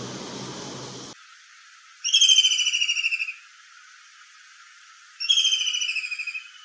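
Two kingfisher calls, each a loud, high-pitched rattling trill falling slightly in pitch over about a second and a half, about three seconds apart. Before them, a scratchy rubbing noise cuts off about a second in.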